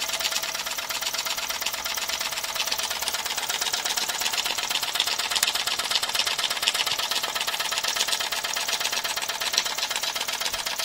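Small spirit-fired steam donkey engine running on its own with a fast, even clatter. The owner puts its sluggish running down to too much water in the steam system.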